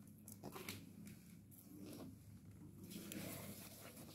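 Near silence, with a few faint, short rustles and taps of gloved hands handling plastic flower pots.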